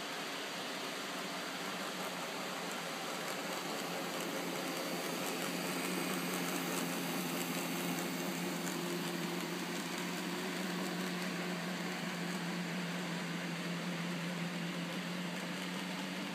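N-scale model diesel locomotive and container train running past on the layout's track: a steady low motor hum swells as the locomotive nears and holds while the cars roll by, with a few faint clicks, over a constant hiss.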